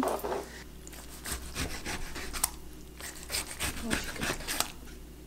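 Quick rasping, scraping strokes of kitchen utensils during cooking prep, in two short runs of about a second each.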